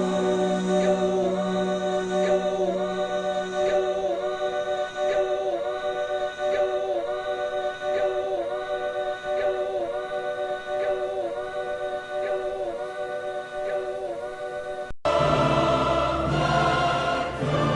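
Background music: sustained choir-like voices holding a chord with small repeated dips in pitch. About fifteen seconds in it cuts abruptly to a fuller passage with bass.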